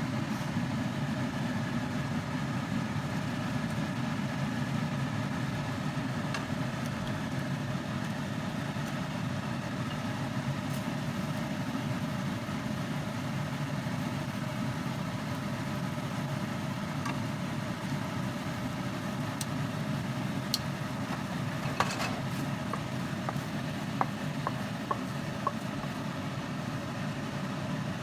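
A steady mechanical hum, like a kitchen exhaust fan, runs over a pan of pork chops and onion cooking in sauce. A few light clicks of a utensil against the pan come near the end.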